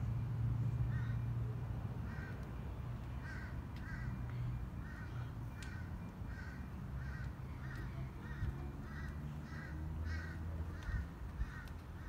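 A bird calling over and over in short, evenly spaced notes, about two or three a second, with a low rumble underneath at the start and again about ten seconds in.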